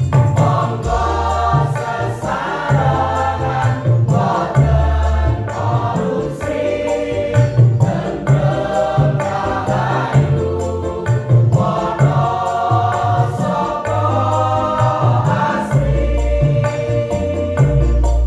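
Mixed choir of women's and men's voices singing together over a low bass line of notes held about a second each.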